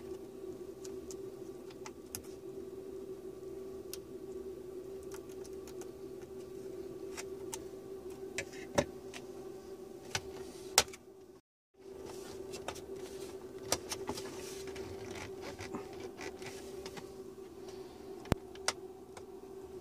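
Light handling clicks and taps of a tweezer and fingers on the plastic and metal of a laptop's opened top case, a few of them sharp, over a steady hum. The sound cuts out completely for a moment near the middle.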